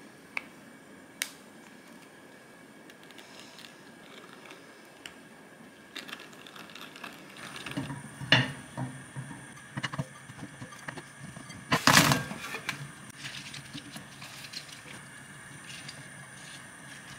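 Kitchen handling sounds: two light clicks of a wooden spoon against a glass mixing bowl, then irregular knocks and clatter of chunks of radish and vegetables being set into a frying pan, the loudest cluster about twelve seconds in.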